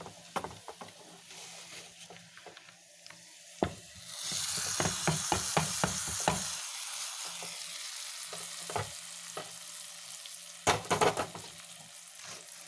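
Hot oil tempering of mustard seeds, shallots, dried chillies and curry leaves poured into the mango pulissery curry: a loud sizzle starts about four seconds in and slowly dies down, with a spoon clicking and scraping against the pot as it is stirred, louder near the end.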